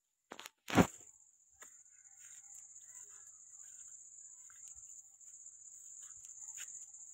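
Crickets chirring steadily in a high, even drone, with scattered faint ticks. About a second in, a loud thump from the phone being handled stands out over it.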